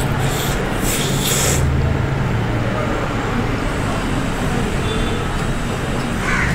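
Close-miked chewing of fried chicken, with a few crackly crunches about a second in, over a steady low rumble.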